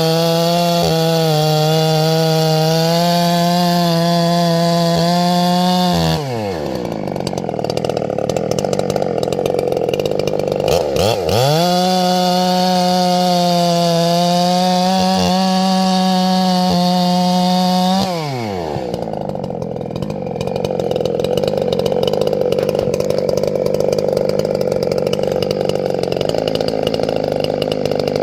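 Two-stroke chainsaw held at full throttle while cutting, easing off about six seconds in and returning to full throttle from about eleven to eighteen seconds, its pitch sweeping up and down at each change. In between and afterwards, a lower saw-engine drone carries on.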